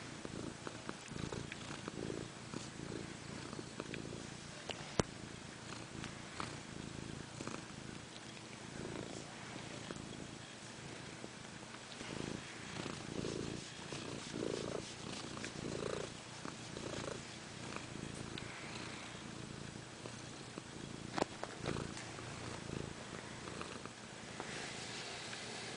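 A sleeping pet snoring, a low rumble that swells and fades, with a couple of sharp clicks.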